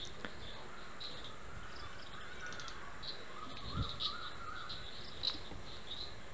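Faint background chirping: short high chirps repeating irregularly, with a faint wavering call in the middle and a soft knock about four seconds in.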